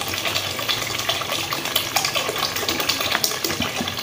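Water poured in a steady stream into a pot of thick tomato gravy, splashing and gurgling into it.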